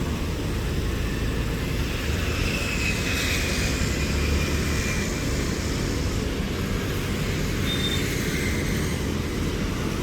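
Steady low rumble of outdoor ambient noise, with faint thin high tones now and then.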